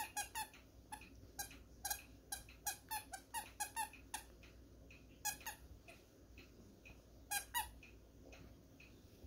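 Squeaky plush dog toy squeaking in short squeezes as a puppy chews it: a quick run of squeaks over the first four seconds, then a couple of double squeaks later on.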